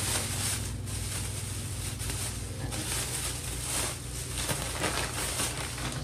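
Plastic grocery packaging rustling and crinkling unevenly as items are handled, over a steady low hum.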